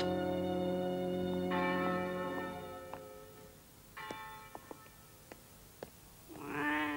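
Church bells ringing, with fresh strikes about a second and a half in and again about four seconds in, the ringing dying away. A few faint ticks follow, then a cat meows once near the end.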